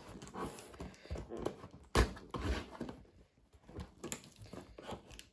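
Irregular knocks, scrapes and rustles of hands working at a cardboard box to get it open, with one sharper knock about two seconds in and a short quiet gap after it.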